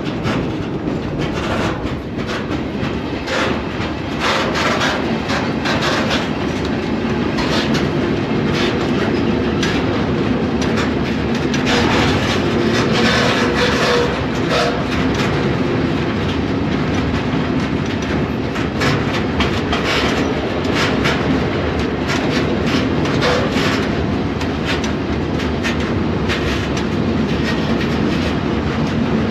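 Freight train rolling along, heard from aboard a car: a steady rumble with constant rattling and clatter of wheels over the rails.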